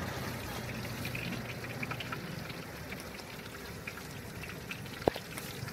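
Snails in a wok sizzling, with a steady hiss and scattered small crackles, and one sharp click about five seconds in.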